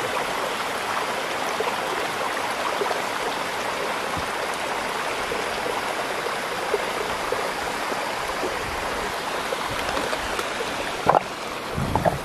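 A small mountain stream rushing steadily down over rock slabs in little cascades. Near the end come a couple of brief knocks and a low rumble.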